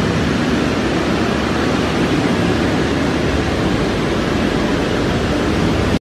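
Industrial steam boiler plant running: a steady, even machinery noise that holds unchanged throughout.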